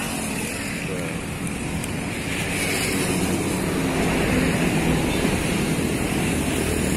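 Road traffic running past: car and motorcycle engines with tyre noise, growing louder about two and a half seconds in as a vehicle comes closer.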